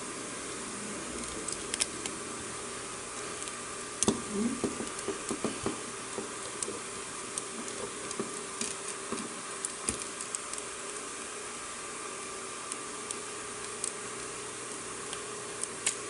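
Small clicks, knocks and rattles of a plastic transforming robot figure's parts being handled and folded, over a steady hiss. The clicks bunch together about four seconds in.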